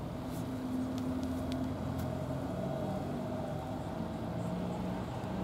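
An engine running steadily: a low drone with a few held tones that shift in pitch now and then.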